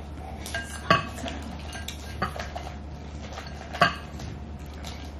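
Boiled crawfish shells clicking and knocking against a glass bowl as fingers pick through them. There are a few scattered knocks, the sharpest about a second in and again near the four-second mark.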